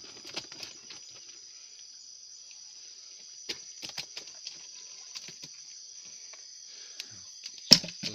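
Steady high-pitched drone of an insect chorus, with a few light clicks and knocks in the middle and one sharp knock near the end.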